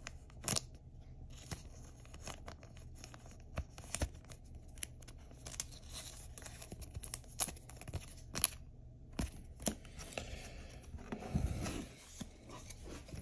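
Thin plastic card sleeve rustling and crinkling with scattered light clicks as a trading card is slid into it and handled, with a soft knock about eleven seconds in.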